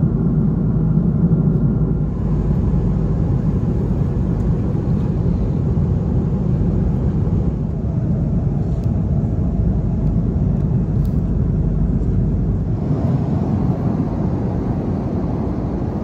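Steady cabin roar of an Airbus A330-300 airliner in cruise flight, engine and airflow noise heard inside the cabin. The character of the rumble shifts slightly about two seconds in and again near the end.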